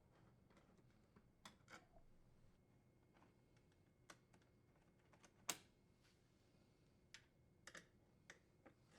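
Faint scattered clicks and taps of a T15 Torx bit and screws being worked out of a dishwasher door's side panel, with one sharper click about five and a half seconds in.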